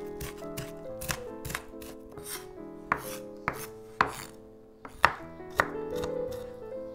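A chef's knife chopping red onion and then garlic on a wooden cutting board: separate sharp knocks of the blade on the wood, a pause and a half-second apart, over soft background music.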